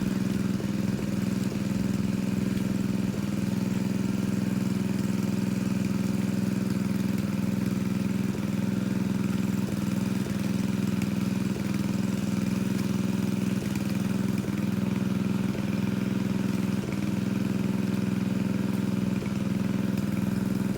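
Engine of a pump draining a pond running steadily at an even speed.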